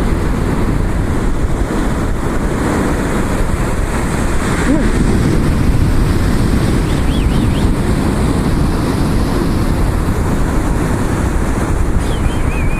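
Steady wind rumble on the microphone over the wash of surf, with a few faint, brief gull calls about seven seconds in and again near the end.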